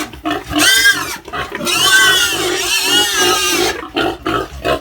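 Pig squealing loudly: a few shrill, arching squeals, the longest lasting about two seconds.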